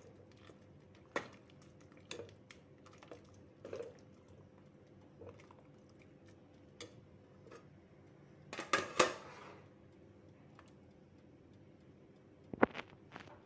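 Metal ladle clinking and knocking against the inside of a stainless-steel stockpot while soup, lotus root and carrot are scooped out: scattered light clinks, a louder clatter with a short ring about nine seconds in, and two sharp knocks near the end.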